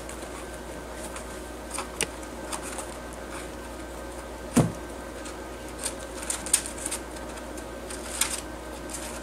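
Sugar gliders feeding on pomegranate flowers: small scattered clicks, crackles and rustles as they chew and move over the cardboard and wire cage floor. There is one louder knock about halfway through, over a steady low hum.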